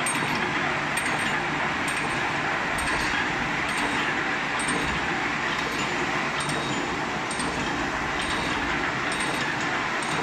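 Hengtai automatic wire mesh welding machine running: a steady metallic clatter and jingle with a regular beat just under once a second, the machine's welding cycle.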